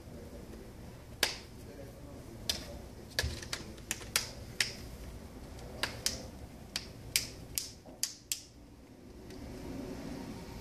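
A string of about fifteen sharp, short clicks at uneven spacing, from handling the Samsung Galaxy S5 as it is put back together for a power-on test.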